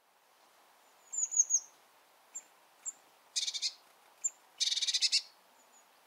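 Eurasian blue tit calling: a quick run of thin, high falling notes, a few single high chips, then two short buzzy rattles a little over a second apart.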